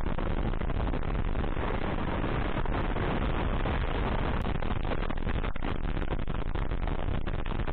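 Motorcycle running at a steady pace while riding, its engine noise mixed with wind rush.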